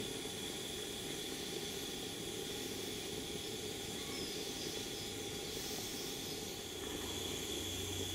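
Steady hiss from a gas-fired model vertical boiler as it is fired and raising steam.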